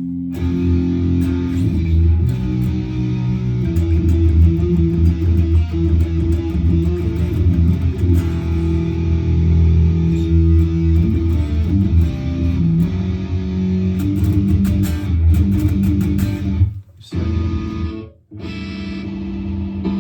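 Strandberg Boden Essential 6 electric guitar played through a high-gain, distorted patch on a Headrush multi-effects board: heavy riffing on low notes with quick picked attacks, broken by two brief stops near the end.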